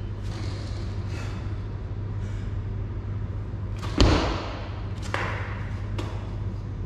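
Barbell split jerk with a loaded bar: one heavy thud about four seconds in as the lifter drops under the bar and his feet land in the split, with a few lighter clanks of bar and bumper plates, over a steady low hum.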